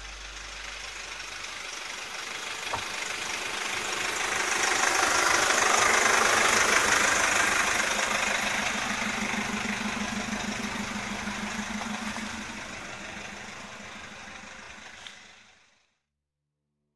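Sprinter-based motorhome driving over off-road terrain: engine and rolling noise swell to a peak about six seconds in and then fade, as in a drive-past, with a short knock now and then. The sound cuts off abruptly near the end.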